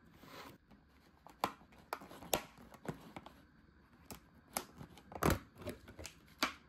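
A plastic deli food container being handled: a short rustle, then about a dozen irregular sharp clicks and crackles of plastic.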